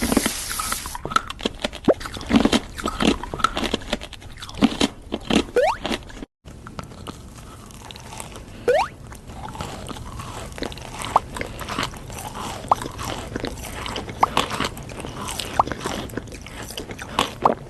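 Close-miked eating: crunchy food being bitten and chewed, a dense run of crisp crunches and crackles. The sound cuts out completely for a moment about six seconds in.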